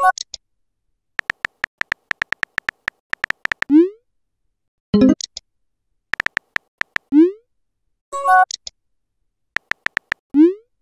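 Texting-app sound effects: runs of quick phone-keyboard typing clicks, each followed by a short rising whoosh as a message is sent and a short electronic blip as the next message bubble appears. This cycle repeats about three times.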